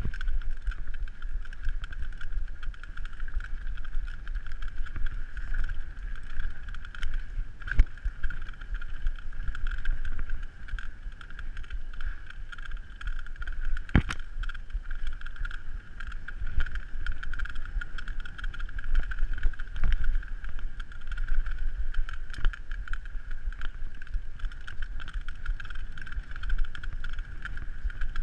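Downhill mountain bike running fast over a dirt trail: continuous rumble of tyres, wind noise on the microphone and the rattle of the bike over bumps, with a steady high-pitched whirr. There are a few sharp knocks, the loudest about halfway through.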